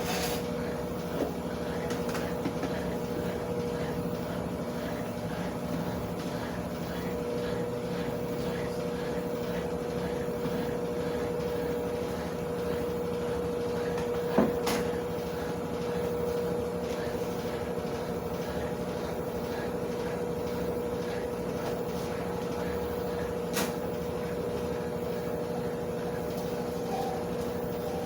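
Consul washing machine running with a steady hum, with a few short knocks about a second in, near the middle and near the end.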